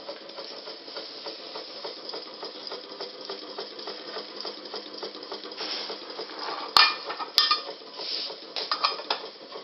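A small homemade gamma Stirling engine with a membrane piston runs with a faint, even ticking. About seven seconds in come two sharp metallic clicks, then a short cluster of clinks near the end, as the tin lid of its flame burner is handled.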